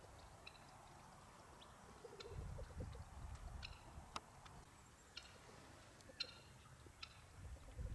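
Faint, scattered short clucks from a small flock of foraging chickens, with a few sharp ticks. Low wind rumble on the microphone about two seconds in and again near the end.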